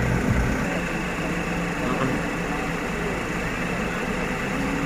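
Truck engine idling steadily with a low rumble.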